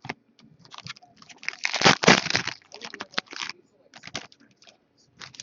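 Trading cards being handled: irregular rustling and sliding with small clicks, loudest about two seconds in.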